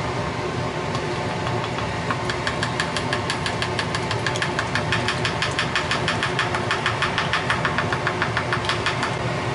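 Fine-mesh stainless strainer being shaken by hand while stock is strained through it, its metal rim rattling against the pot in quick, even clicks, several a second, starting about two seconds in and stopping near the end, over a steady low hum.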